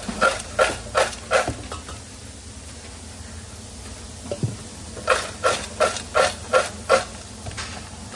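Fries being tossed in a stainless steel bowl: two runs of quick, rhythmic shakes, about three a second, each one making the metal bowl ring. The first run is at the start and the second comes about five seconds in.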